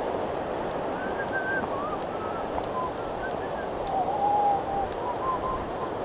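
Birds singing short whistled notes, one after another with pauses, one note held a little longer about four seconds in, over a steady rushing noise like wind through the forest.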